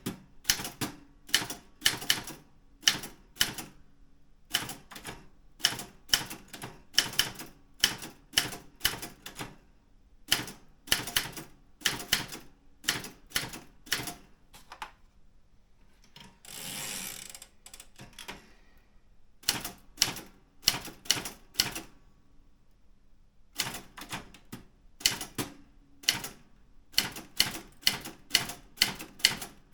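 Daro Optima M16 manual typewriter being typed on: irregular runs of sharp key and typebar strikes broken by short pauses, with one longer rasping sound of about two seconds roughly halfway through.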